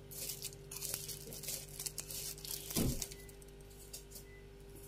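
Light scraping and clinking of a spoon while food-colouring powder is sprinkled over raw potato sticks in a ceramic bowl, with one soft thump a little before three seconds in. A steady low hum runs underneath.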